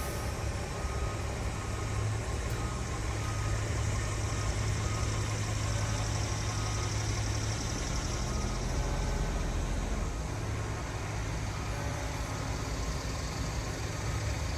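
A vehicle engine idling: a steady low hum over outdoor background noise, with a few faint short high notes now and then.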